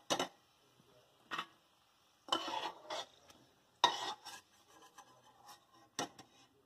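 Perforated metal skimmer spoon scraping and clinking against a stainless steel kadai as fried potato sticks are scooped out of the oil. There are five separate scrapes and knocks with short gaps between them; the longest comes at the middle of the run.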